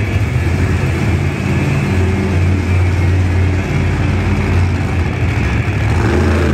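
Monster truck engine running with a loud, steady low note as the school-bus-bodied truck drives across the dirt arena floor.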